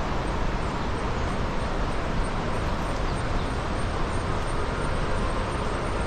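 Steady outdoor rumble and hiss with no distinct events, heaviest in the low end.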